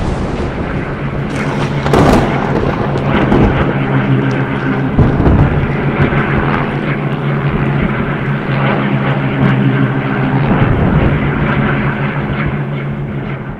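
Propeller aircraft piston engines droning steadily, as of several planes flying in formation, with a loud low hum that eases slightly near the end.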